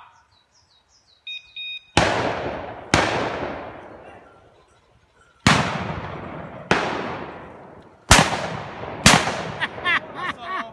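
Shotgun shots in the woods: six loud reports in three pairs, each ringing away through the trees. A short electronic beep comes just before the first pair.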